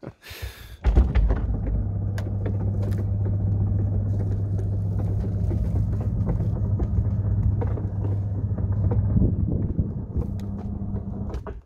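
Roll-off roof of a small backyard observatory rolling shut along its support rails, its drive motor giving a steady hum. It starts about a second in and stops just before the end.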